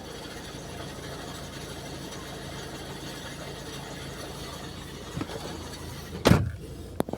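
Ford Focus 1.6 TDCi four-cylinder turbodiesel engine running with a steady rattle, which the owner suspects comes from a worn engine mount on the left side. A single loud knock about six seconds in and a sharp click near the end.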